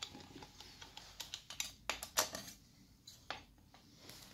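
Irregular sharp clicks and light knocks, about a dozen, the loudest about two seconds in, from hands and tools handling a submersible pump's metal casing and fittings.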